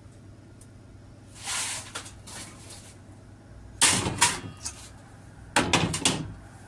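Workshop handling noise on sheet-metal door panel work: a brief scrape, then two sharp knocks and a quick run of clattering knocks as metal parts and tools are picked up and set down.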